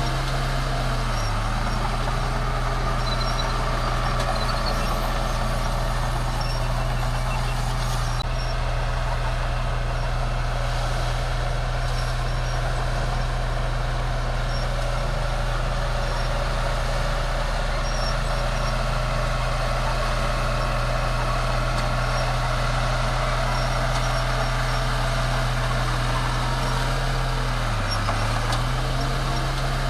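Bulldozer's diesel engine running steadily under work, its pitch dipping briefly about a second in and again near the end.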